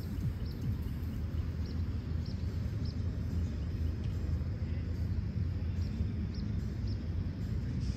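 Steady low outdoor rumble, like wind on the microphone, with about ten faint, very short high chirps at irregular intervals.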